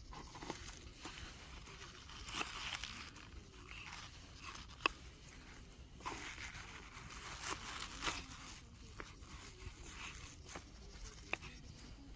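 Rustling and handling noises, as of fabric and camping gear being moved about, in irregular bursts with a few sharp clicks, the sharpest about five seconds in.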